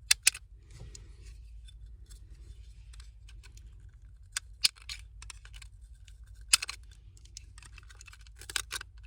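Utility knife scraping and clicking as it trims small bits of plastic from the edge of a cut-out hole, smoothing away ridges and sharp edges. A few sharp clicks stand out, with a cluster near the end, over a steady low hum.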